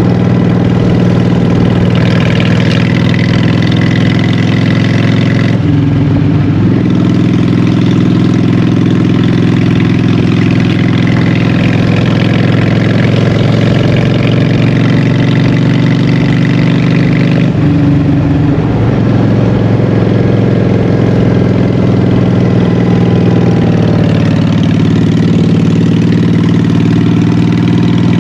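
Honda Shadow 750's V-twin engine running through Vance & Hines Short Shots exhaust pipes, out on the road. The engine note is loud and steady, with two short breaks where its pitch drops and picks up again, about six and about eighteen seconds in.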